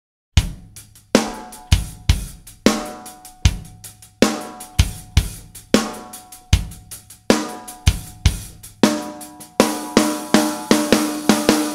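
Opening of a heavy metal track: after a brief silence, a drum kit comes in with heavy, evenly spaced hits of kick drum and cymbal, with sustained pitched notes ringing under them. About ten seconds in the hits come faster.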